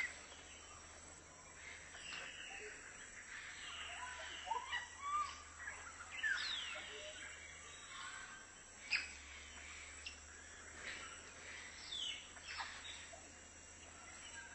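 African grey parrots calling, with scattered short whistles and squawks that slide up and down in pitch, a few of them sharper and louder.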